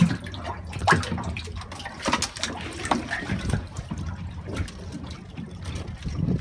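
Water sloshing and trickling, with scattered sharp clicks and knocks over a steady low rumble.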